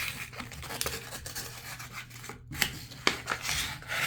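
Sandpaper rubbing by hand inside a tub faucet's valve body to smooth out burrs before a new cartridge goes in: uneven scratchy strokes with a few sharp clicks.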